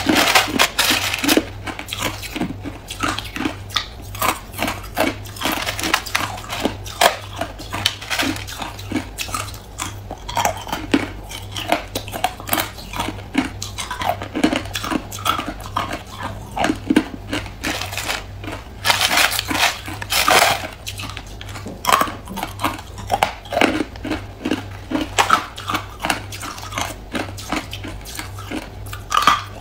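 Hard, clear ice being bitten and chewed close to the microphone: a run of irregular crunches and cracks, with louder bites at the start and about two-thirds of the way through.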